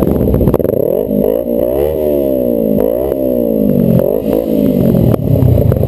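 Kawasaki Ninja 250 motorcycle engine revved up and down about three times, its pitch rising and falling with each blip of the throttle, over the idling of several other motorcycles.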